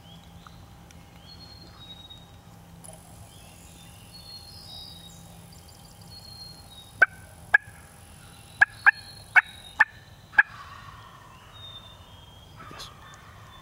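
Wild turkey calling: a series of seven short, sharp, loud notes spread over about three and a half seconds, starting about halfway through.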